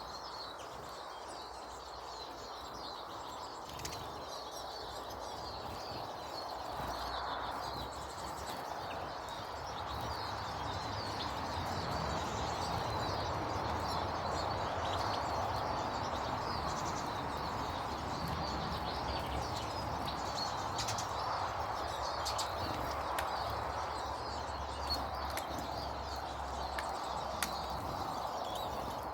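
Small birds chirping and twittering throughout, over a steady rushing background noise with a low rumble that grows louder about a third of the way in.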